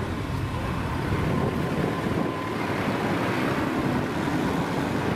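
Engine of an off-road trial 4x4 running steadily as it crawls up a muddy slope, mixed with wind noise on the microphone.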